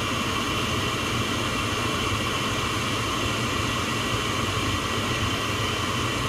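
Comfortmaker 80% gas furnace's combustion blower (draft inducer) motor running steadily, a constant mechanical hum with a faint high whine. This is the pre-purge stage: draft has been proven by the pressure switch and the hot surface igniter has not yet come on.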